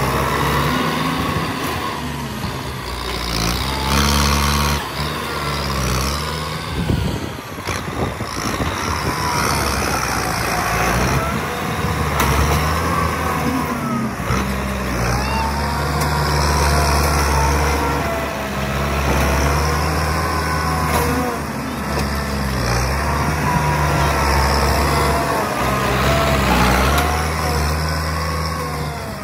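Kubota M9540 tractor's diesel engine running under load as its front dozer blade pushes loose soil and rocks. The engine speed rises and falls over and over, with a couple of brief clanks.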